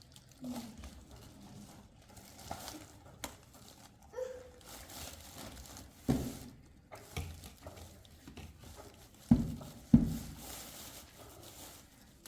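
Handling noises: rustling and scattered small knocks, with two louder thumps about nine and ten seconds in.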